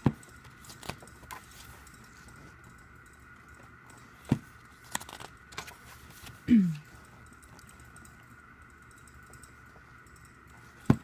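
Glossy pages of a photobook album being turned and handled: scattered paper flicks and a few sharp taps, the loudest just before the end.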